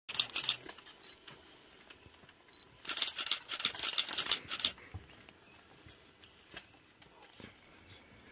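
A camera shutter firing in rapid bursts: a short run of clicks at the start, then a longer run of nearly two seconds about three seconds in.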